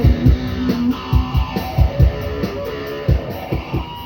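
Band music with no singing: guitar playing held chords over a steady beat of low hits.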